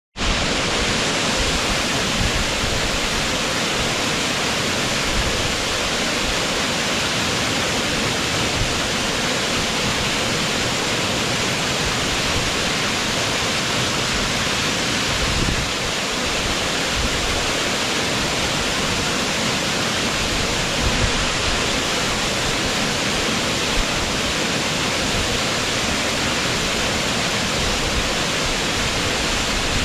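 Waterfall pouring steadily into its pool, a loud even rush of falling water.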